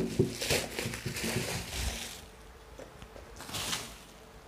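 Bubble wrap crinkling and rustling as hands handle a bubble-wrapped cardboard box, busiest in the first two seconds with a few soft knocks, and one more brief rustle a little past three seconds.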